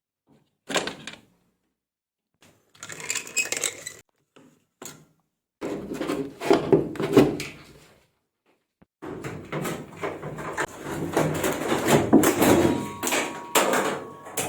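Handling noise from work on a washing machine: knocks, clatter and scraping in short bursts broken by dead-silent gaps, busiest in the second half, with a faint steady tone near the end.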